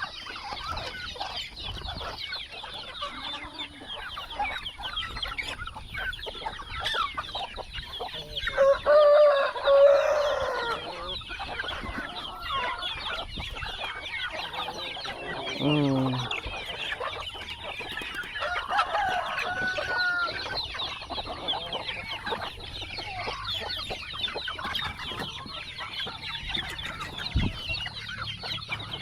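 Farmyard chickens clucking and calling without a break, with a louder drawn-out call about nine seconds in and a shorter falling call around sixteen seconds.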